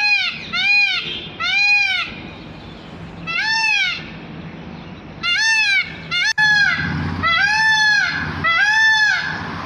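Indian peafowl calling: a series of loud, arched, wailing calls, about half a second each, coming roughly a second apart with a short pause midway. The later calls are longer and flatter.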